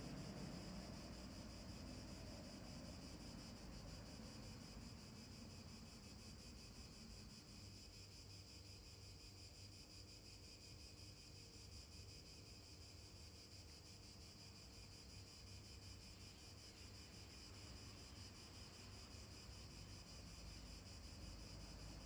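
Near silence: a faint, steady high-pitched hiss with a faint low rumble underneath, a little stronger at the start.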